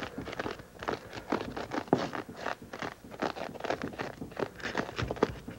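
A knife and a large-blade screwdriver gouging and scraping beaded polystyrene foam board, a quick irregular run of short scratchy crunches as the beads are torn out.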